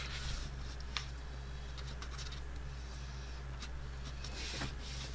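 Kraft cardstock rustling and creasing as fingers press a glued panel into a fold, with a light tick about a second in and another near the end, over a steady low hum.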